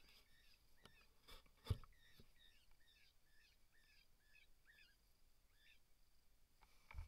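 Faint series of short high chirps, about three a second, stopping about five seconds in, with a single sharp knock about two seconds in.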